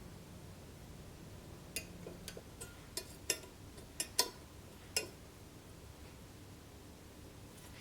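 A series of about ten light clinks and taps of hard objects knocked together, irregularly spaced over about three seconds, some ringing briefly.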